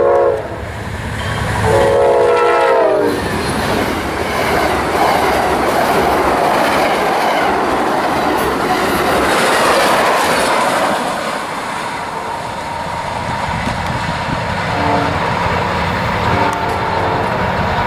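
Amtrak passenger train's diesel locomotive sounding its horn, a short blast and then a longer one of about a second and a half. The train then rushes past at speed with a loud rumble and wheel clatter, which fades as it pulls away, and fainter horn blasts come near the end.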